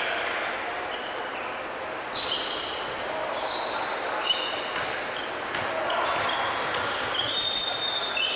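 Basketball players' sneakers squeaking on a hardwood gym floor as they run and cut, many short high squeaks, with one sharp knock about four seconds in.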